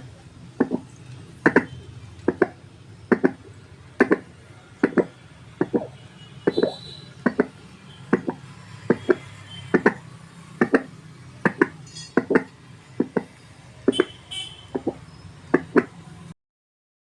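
Fetal Doppler's speaker playing a heartbeat-style pulse signal: evenly spaced beats a little under one a second, about 75 a minute, each with a fainter second beat, over a steady low hum. It cuts off suddenly near the end.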